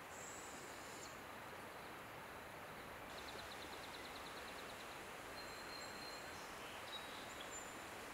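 Quiet woodland ambience, a steady soft hiss, with thin, high bird calls over it. There is a short high hiss in the first second, a rapid trill of about seven pips a second around three seconds in, and a few brief thin whistles near the end.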